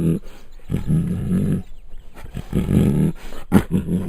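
Bengal tiger growling in a series of low, rough calls, each about a second long, with short gaps between them. There is a sharp knock about three and a half seconds in.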